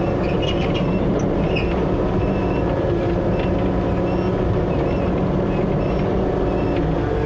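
John Deere excavator's diesel engine running steadily under load as the machine is repositioned, with short metallic squeaks and clinks, mostly in the first couple of seconds.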